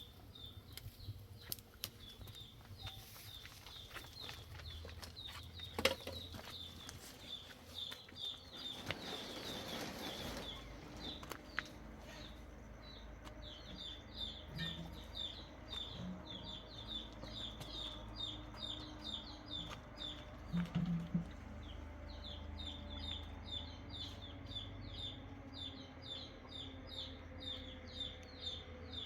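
A bird chirping over and over, short evenly spaced chirps about two to three a second, with a couple of brief pauses. A single sharp knock comes about six seconds in.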